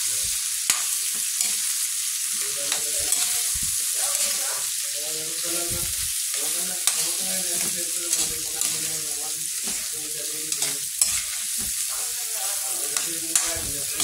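Shrimp sizzling in hot oil and margarine in a pan, stirred with a spatula that clicks and scrapes against the pan now and then.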